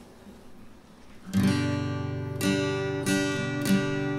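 Background music: acoustic guitar playing strummed chords, starting about a second in after a quiet start.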